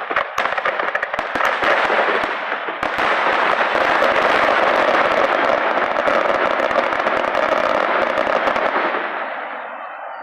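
Fireworks finale: a rapid barrage of bangs that thickens into continuous crackling about three seconds in, then dies away near the end.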